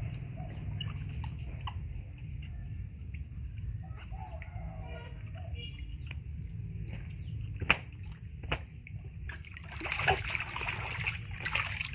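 Baby monkey splashing in a plastic tub of water, with water slopping over the rim, loudest in the last couple of seconds. A few sharp knocks come before that, and high chirping repeats in the background.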